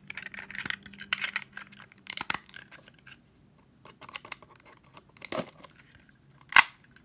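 Packaging of a phone case being torn and crinkled open: a run of irregular rips and rustles, then sparser handling noises, with one short, louder rip or snap near the end.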